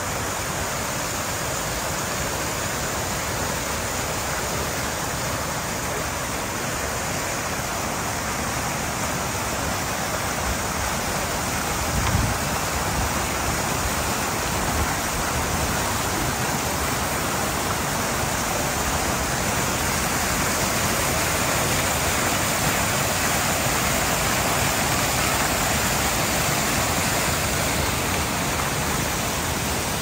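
Steady rushing noise with no pitch, even across the range, with a brief low thump about twelve seconds in.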